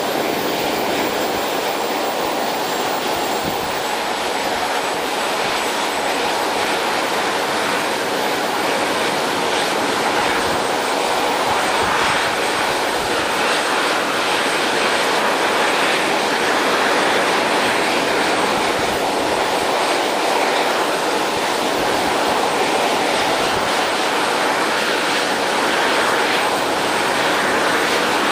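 Model (RC) jet turbine engine running steadily on a test stand: a loud, even rush of exhaust noise with a faint thin high whine.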